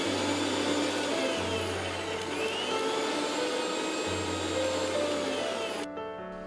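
A household appliance's electric motor running with a loud rushing whir, its pitch dipping and rising again, then cut off sharply near the end. Soft background music plays underneath.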